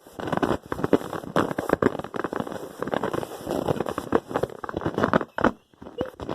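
Fart sounds: a long run of sputtering, crackling pulses in quick irregular succession. They break off briefly about five and a half seconds in, then start again.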